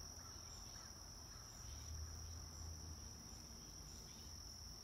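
Faint, steady, high-pitched trill of insects, unbroken throughout, over a faint low hum.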